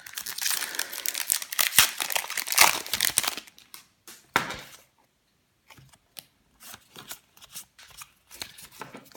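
Foil wrapper of a Pokémon booster pack being torn open and crinkled for about three and a half seconds, followed by short rustles and clicks of the cards being handled.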